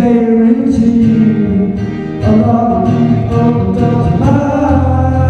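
A man singing into a microphone while playing an acoustic guitar, a solo live song.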